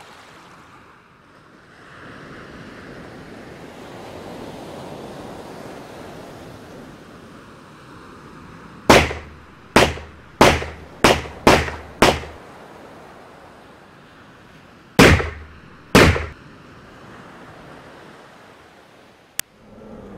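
Sea waves and wind running as a steady wash. About nine seconds in, a ragged volley of six sharp gunshots comes in quick succession, then two more single shots a few seconds later.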